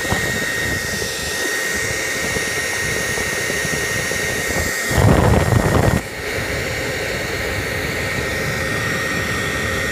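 Hair dryer running steadily, a constant rush of air with a high whine. About five seconds in, a louder low rush lasts about a second.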